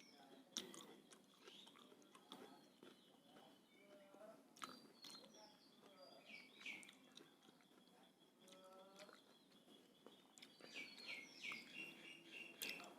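Faint chewing and mouth clicks from someone eating rice and curry, with birds chirping now and then in the background.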